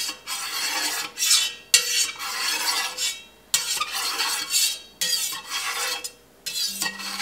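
Offset spatula cutting through set milk curd in a stainless steel pot, its metal blade scraping along the pot in a run of strokes, about one a second, as the curd is cut into columns.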